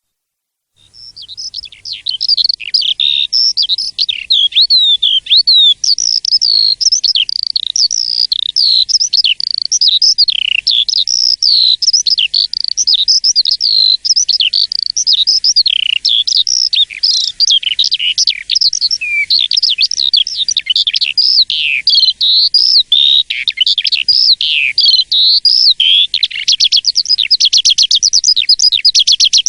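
Asian pied starling (jalak suren) singing a long, unbroken, varied song of gliding whistled notes. Near the end it breaks into a fast run of rapidly repeated notes.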